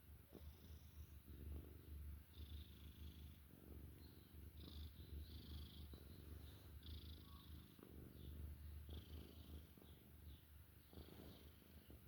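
A domestic cat purring steadily, a low, pulsing rumble.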